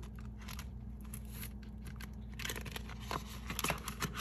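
Paper banknotes and a cash envelope being handled: light rustling, crinkling and soft taps, getting busier in the second half and ending with one sharper crinkle, over a faint steady hum.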